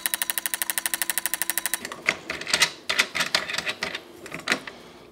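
Porsche 911 3.2 fuel injectors clicking rapidly and evenly as the injector tester pulses them in a flow test, about a dozen clicks a second, stopping suddenly about two seconds in. Irregular clicks and knocks of the injector connectors and clips being handled follow.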